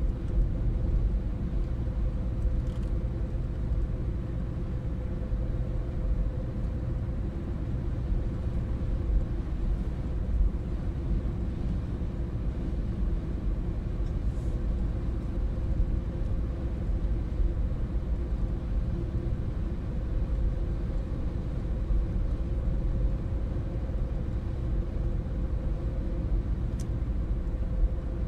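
A car driving at steady speed, heard from inside the cabin: a constant low rumble of tyres and engine with a faint steady drone, and a few faint ticks.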